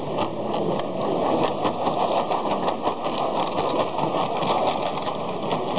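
Model Croydon Tramlink tram running along its track: a steady mechanical whirr from its small motor and gearing, with many quick clicks scattered through it.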